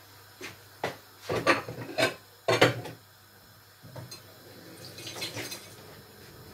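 Kitchenware clattering: a quick series of sharp knocks and clinks over the first three seconds, then a few softer knocks and a short rustle.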